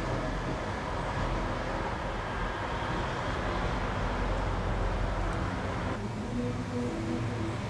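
Steady background noise: a continuous low rumble under an even hiss, with no clear individual events.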